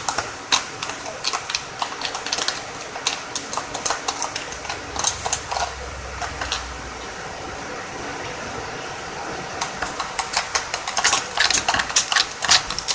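A spoon stirring slime mixture in a bowl, making rapid clicks and scrapes against the bowl. The clicking thins out in the middle and picks up again near the end.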